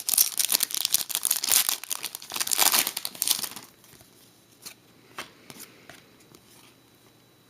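Foil wrapper of a hockey card pack crinkling and tearing as it is ripped open. The rustling stops about three and a half seconds in, leaving only a few faint ticks.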